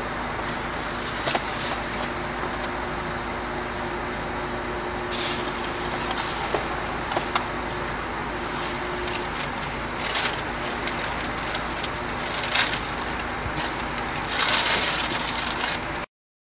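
Steady hiss with a faint low hum beneath it and scattered brief clicks and crackles. It drops out to silence for under a second near the end.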